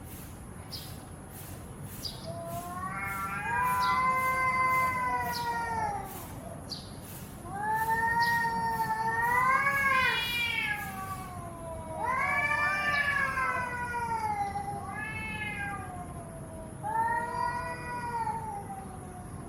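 Cats caterwauling in a fight standoff: a series of long, drawn-out yowls that waver up and down in pitch, with short pauses between them.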